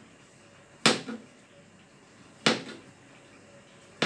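Kitchen knife slicing through a sausage and hitting a plastic cutting board: a sharp knock about every second and a half, each followed by a softer tap.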